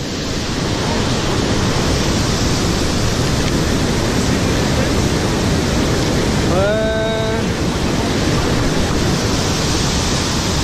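Steady rush of fast-flowing river water. About two-thirds of the way in there is one short voice-like call that rises and then holds.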